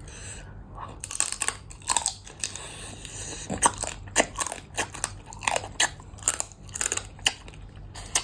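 A person biting and chewing crunchy food, with a run of sharp crunches about two to three a second starting about a second in.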